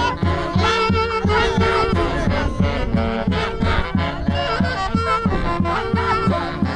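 Traditional Andean herranza band music: sustained wind and string melody over a steady drum beat of about three beats a second.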